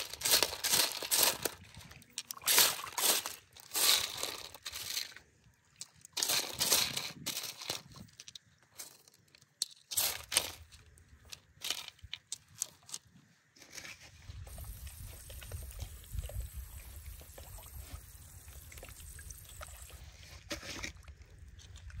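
Wet river gravel and rough gemstones being stirred and picked over by gloved hands in a perforated metal sieve, clattering and crunching in repeated short bursts. After about two thirds of the way in the stone noise stops and a steady low rumble remains.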